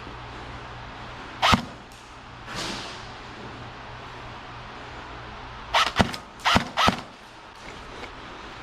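Airsoft guns firing: a single sharp crack about a second and a half in, then a quick string of four or five cracks about four seconds later.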